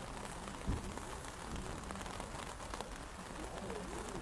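Steady rain falling on an umbrella held just above the phone, many small drop ticks over a constant hiss, with one dull thump just under a second in.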